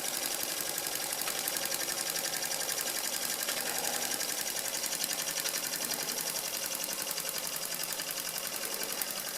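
Doll 320/3 toy steam engine running steadily, its piston and side valve keeping a fast, even beat.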